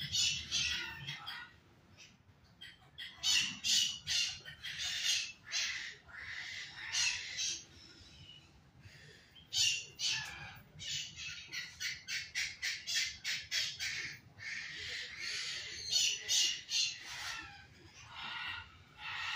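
Parrots squawking: many harsh, overlapping calls in quick runs, with brief lulls twice.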